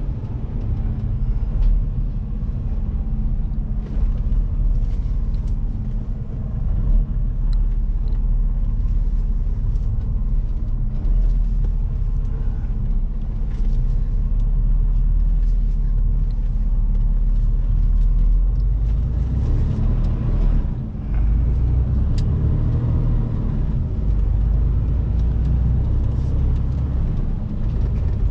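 Semi-trailer truck's diesel engine running under way, heard from inside the cab as a steady low rumble.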